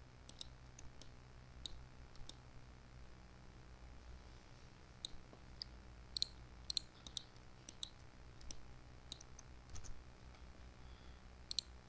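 Computer mouse buttons clicking, about twenty short, sharp clicks at irregular intervals, some in quick pairs.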